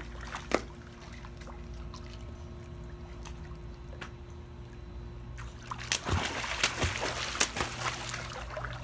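A child splashing in a swimming pool: one sharp splash about half a second in, a calmer stretch of lapping water, then a run of heavier splashes and slaps of water from about six seconds in. A steady low hum runs underneath.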